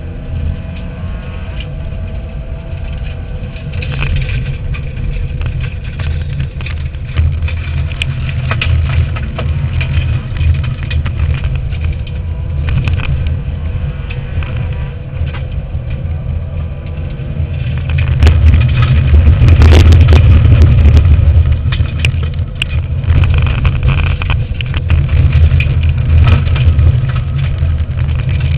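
Subaru Impreza N4 rally car's turbocharged flat-four engine running hard under load, heard from inside the stripped cabin, with a heavy rumble of tyre and road noise and frequent sharp knocks and rattles. It gets loudest about two-thirds of the way through.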